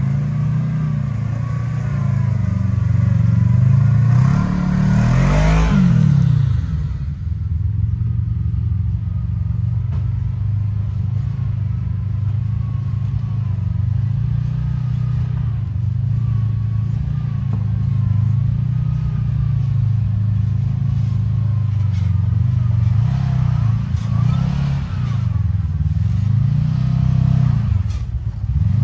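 Kawasaki KRX side-by-side's engine running at low revs, with throttle blips that rev it up and back down about five seconds in and again in the last few seconds.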